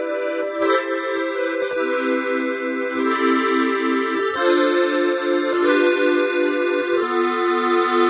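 Accordion playing a rhythmic chord accompaniment, short repeated notes with the chord changing every second or so. It demonstrates easing off the bellows pressure after each note to soften the repeated bass-and-chord sound.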